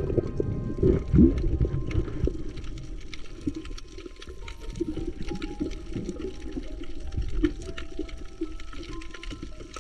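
Water sloshing and bubbling with many small clicks, under background music with slow held notes.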